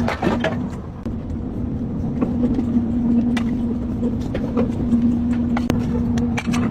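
A steady, pitched mechanical hum over a low rumble, briefly dropping out a few times, with scattered light clicks.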